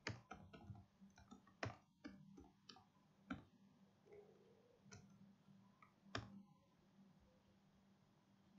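Computer keyboard and mouse clicks: a handful of sharp, separate clicks a second or two apart, with lighter taps between them, over a faint steady hum.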